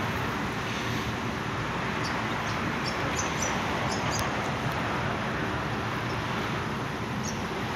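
Steady outdoor background noise, an even hiss and rumble, with a few faint high clicks.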